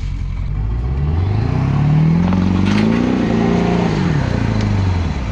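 A vehicle engine revving up, its pitch climbing for about two seconds, then dropping back down over the next second or so.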